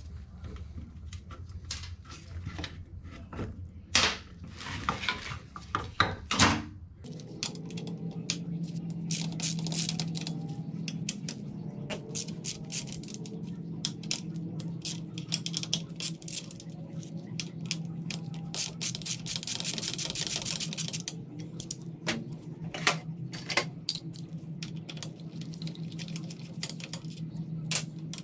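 Metal tools clinking against a dirt-bike frame, then, from about seven seconds in, a socket ratchet clicking in quick runs on the Yamaha PW80's handlebar clamp bolts, over a steady low hum.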